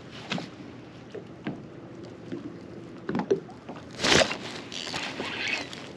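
Scattered knocks and clicks from handling gear and a fish in a fishing boat, with one louder rushing, scraping burst about four seconds in.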